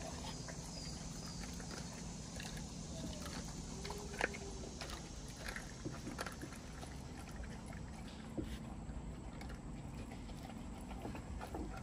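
An American bully dog chewing a raw chicken leg quarter: scattered wet bites and crunches of bone and gristle, with one sharper crack about four seconds in.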